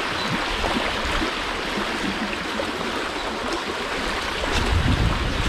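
River water rushing steadily, an even hiss. Near the end a low rumble joins it.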